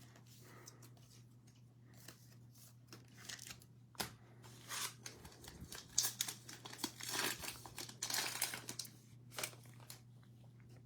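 Plastic cello wrapper of a trading-card pack being torn open and crinkled, with cards handled, in irregular crackling bursts over a faint steady hum.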